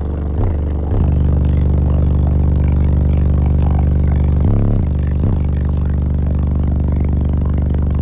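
Car audio subwoofers in a bandpass wall playing a loud, steady, deep bass note as a demo. The note cuts out or shifts briefly a few times.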